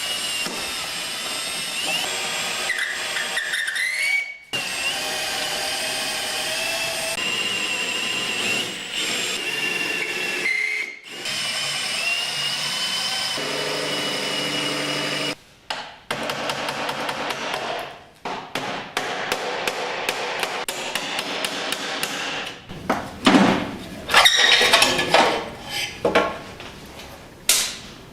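Electric drill running in several stretches, its whine dipping and rising as it works through the aluminium rivets that hold the fuel tank in. This is followed by many sharp knocks and taps of tools on metal, loudest a little before the end.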